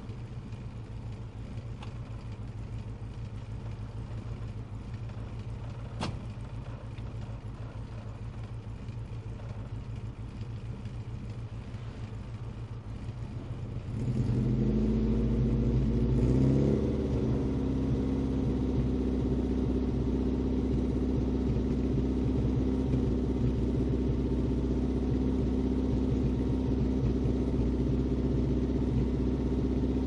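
Exhaust of a 1992 Rover Mini 1000's A-series engine, fitted with a long-centre-branch manifold, a 45 mm catless pipe and a large-bore Peco single-box silencer. It idles steadily; about halfway through, the revs rise over a couple of seconds and hold at a higher steady speed around 2000 rpm, noticeably louder.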